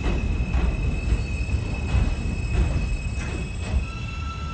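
R160A subway train rolling into the station and slowing. Its wheels clack over the rail joints at a little under twice a second, over a steady high-pitched whine, and a second, lower whine joins near the end.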